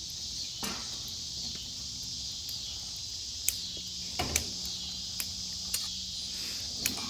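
A steady chorus of crickets chirping, with a handful of sharp snaps and pops from a wood campfire, the loudest about halfway through and near the end.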